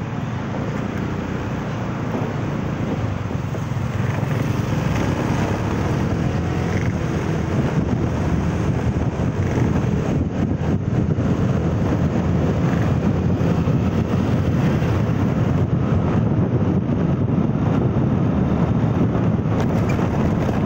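Road vehicle under way, with a steady mix of engine, tyre and wind noise that grows slowly louder as it picks up speed.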